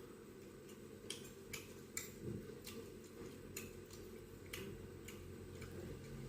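Someone chewing food close to the microphone: a scattering of sharp, irregular mouth clicks and smacks, roughly one every half second to second.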